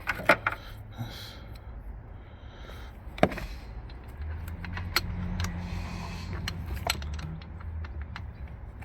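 Ratchet and socket clicking and metal tools clinking while an oil pressure switch is tightened. There are a handful of sharp metallic clicks a second or two apart, with lighter ticks between them.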